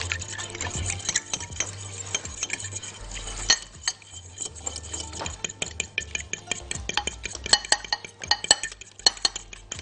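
Eggs and milk being beaten by hand with a fork in a glass bowl: rapid, irregular clicking of the fork against the glass.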